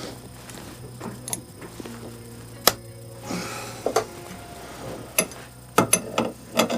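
Hand tools clinking and tapping on metal in irregular sharp clicks, several close together near the end, over a faint steady hum.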